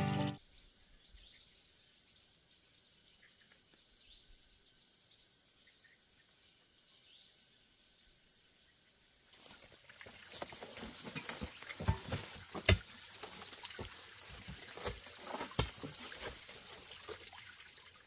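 Outdoor ambience with a steady high-pitched insect drone. About halfway in, rustling starts, with scattered sharp knocks and taps, the loudest a little past the middle.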